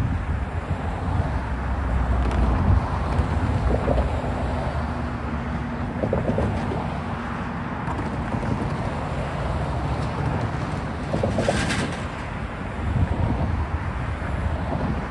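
Road traffic: cars and pickups driving past over the railroad crossing, a steady low rumble of tyres and engines that swells as each vehicle goes by.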